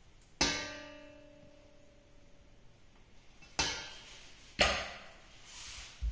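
Metal kitchen utensils knocking against stainless steel mixing bowls while sticky dough is scraped off: a clank about half a second in that rings on with a steady tone for about two seconds, then two shorter clanks about a second apart.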